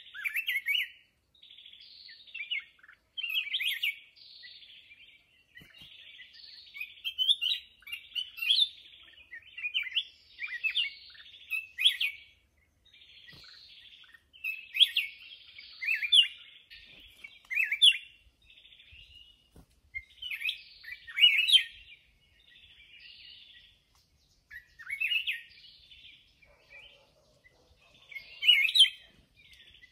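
Bulbul singing: short song phrases repeated every second or two.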